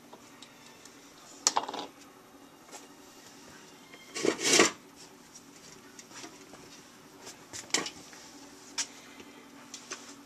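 A ferret rummaging among trash and a plastic bin: scattered light clicks and knocks, with one louder rustling scrape a little past the middle.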